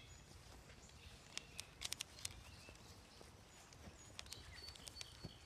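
Near silence: faint outdoor background with a few soft clicks around the middle and some faint short high chirps near the end.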